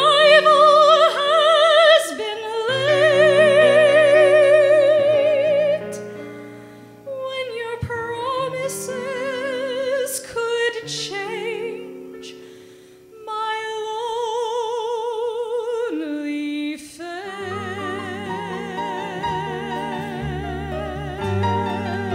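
A woman sings long held notes with a wide vibrato in an operatic style over a small band accompaniment. The voice eases off briefly twice around the middle, then comes back over lower bass notes.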